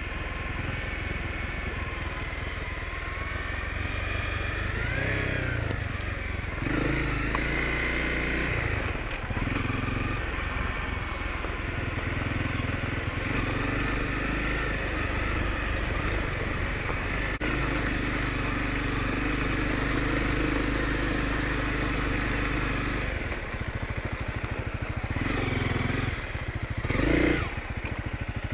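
Honda CRF250L dual-sport motorcycle's single-cylinder four-stroke engine running at trail speed, its note rising and falling with the throttle. Near the end it drops to a low putter, then gives a quick rev about 27 seconds in, the loudest moment.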